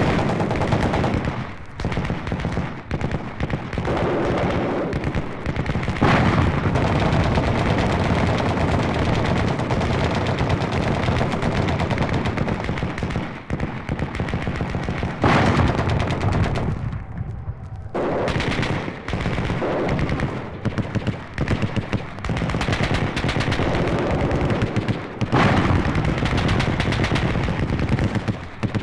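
Sustained rapid machine-gun fire in long bursts with a few short breaks, a recorded war sound effect.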